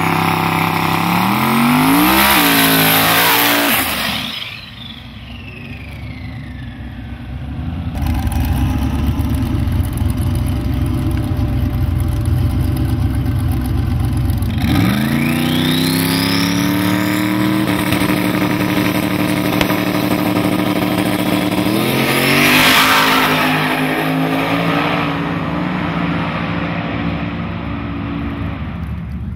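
Drag-racing Mustangs' engines revving hard through a burnout, then launching at full throttle and pulling away down the track. The pitch climbs sharply about halfway through, rises again a little later, and the sound fades toward the end.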